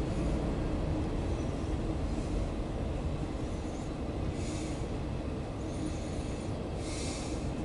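Empty autorack freight cars rolling past, a steady low rumble of steel wheels on the rails. Two short bursts of higher-pitched noise come about four and a half and seven seconds in.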